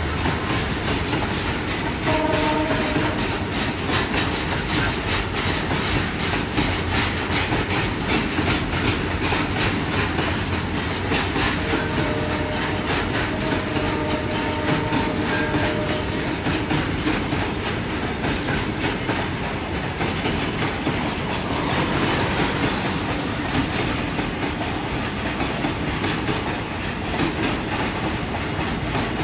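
Freight train wagons rolling past, their wheels clattering steadily over the rail joints.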